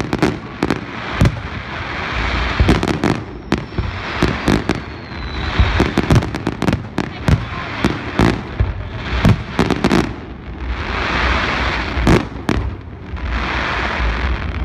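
Fireworks display: aerial shells bursting in a rapid, irregular string of loud bangs over a continuous hissing wash of sound.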